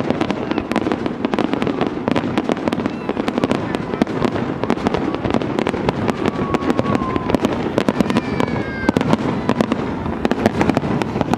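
Large fireworks display: many shells bursting in rapid, overlapping bangs and crackles over a continuous rumble.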